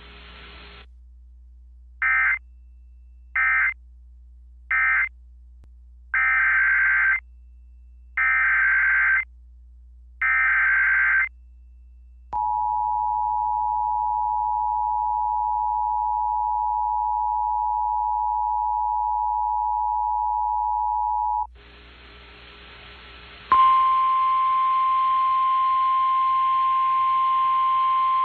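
Emergency Alert System tones: three short screechy data bursts (the end-of-message code of one alert), then three longer data bursts (the next alert's SAME header). Then the two-tone EAS attention signal (853 and 960 Hz) holds for about nine seconds and cuts off. After a moment of hum, a single steady tone, the NOAA Weather Radio 1050 Hz warning alarm tone, starts near the end.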